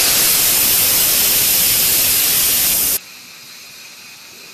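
Instant Pot IP-DUO60's steam release valve venting in a quick pressure release, a loud steady hiss of escaping steam. About three seconds in it drops suddenly to a much quieter hiss.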